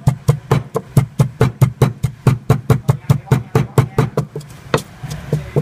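Wooden pestle pounding garlic and red chilies in a wooden mortar: a quick, even run of dull knocks, about four a second.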